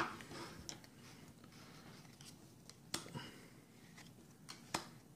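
Pokémon trading cards being flipped through by hand: soft rustling of card stock with a few sharp card snaps, one right at the start, one about three seconds in and two close together near the end.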